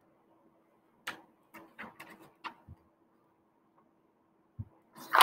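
Paper handout sheets being handled: a string of light crisp rustles and crinkles from about a second in, a soft thump near the end, then a louder rustle of paper, over a faint steady hum.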